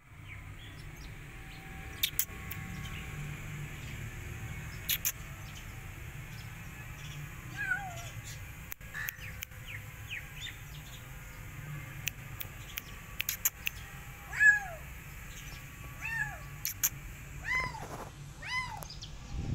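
Kittens meowing: short, high, arched mews that begin about a third of the way in and come more often near the end. A few sharp clicks are scattered through, over a steady low background hum.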